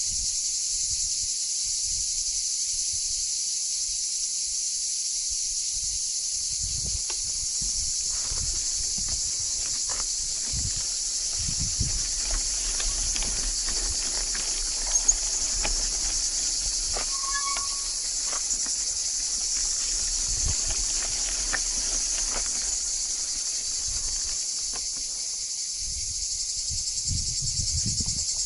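Steady, high-pitched chorus of insects chirring without a break. Now and then there are low rumbles and a few short clicks, the sharpest about halfway through.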